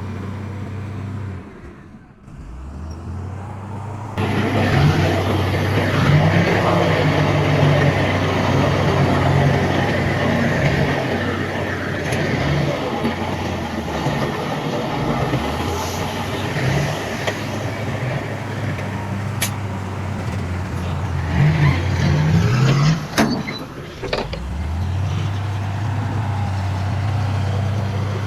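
Heavy diesel earthmoving machinery (dump trucks and a bulldozer) running. A steady idling hum at the start gives way, a few seconds in, to louder working noise with the engine note rising and falling, then settles back to an idle near the end. There is a sharp click a little before the end.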